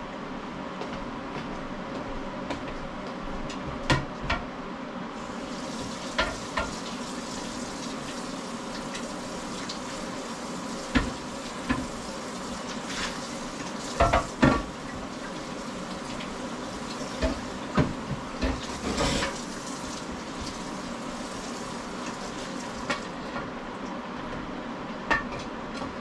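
A pan of pork sizzling steadily on the stove as it heats toward a boil, with scattered knocks and clinks of kitchenware.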